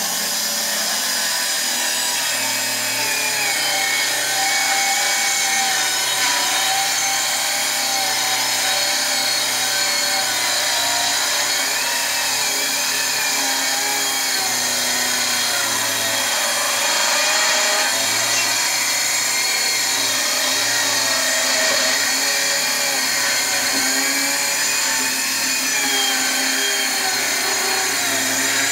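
Parkside 20 V cordless circular saw running through a long cut in wood, its motor pitch wavering up and down as the load changes. The saw is on a part-charged battery that is running flat.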